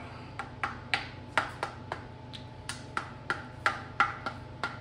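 Rubber mallet tapping the VTEC rocker assembly down onto its guide pins on a Honda cylinder head: a string of light, sharp knocks, about three a second and unevenly spaced.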